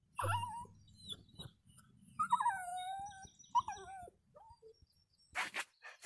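Pomeranian vocalising in a string of short, pitched calls that slide up and down. The longest comes about two seconds in; it falls in pitch and then holds.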